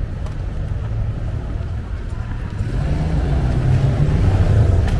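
City street traffic: the low rumble of a motor vehicle's engine close by, growing louder in the second half.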